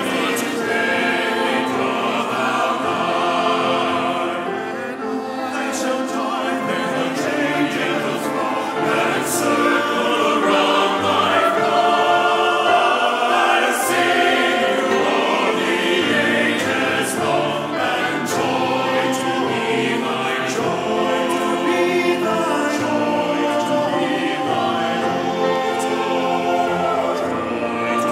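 Mixed choir of men and women singing a hymn.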